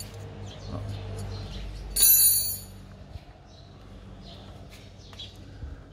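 A hand tool clinking against metal about two seconds in, with a short high ringing that dies away within half a second, over a faint low hum.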